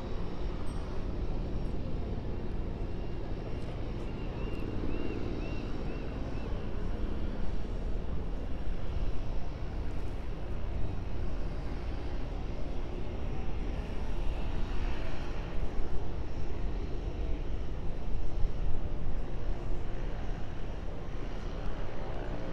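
Cessna Grand Caravan EX floatplane's single turboprop engine running at low taxi power as the plane taxis on the water, a steady drone that swells slightly in the second half.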